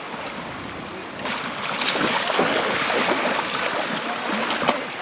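Shallow river water splashing and sloshing around wading legs and a loaded inflatable catamaran raft being walked through the current. It turns louder and closer about a second in, with many small splashes.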